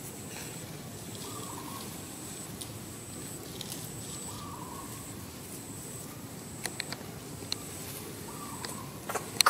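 Outdoor ambience in undergrowth. A soft, wavering bird call repeats every few seconds over a thin steady high tone. A few sharp clicks come late on, and louder short sharp sounds come near the end.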